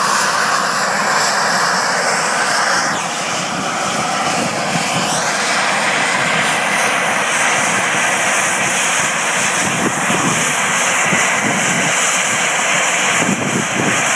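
US Coast Guard MH-60 Jayhawk helicopter's turbine engines running loudly and steadily on the ground during its pre-flight run-up, with a whine rising in pitch about three to five seconds in.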